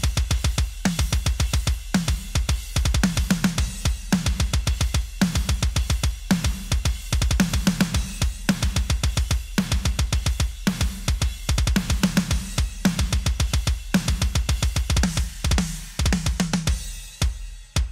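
Soloed metal drum kit playing back: fast kick drum under snare hits and cymbals. The snare is the close mics blended with a one-shot sample, which gives it length and a lot of snap and crack.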